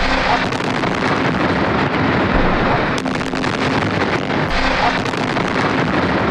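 Rough, steady rumbling noise with wind buffeting the microphone, from field footage of a building just hit in an airstrike, with a few sharp cracks about three seconds in and again a second and a half later.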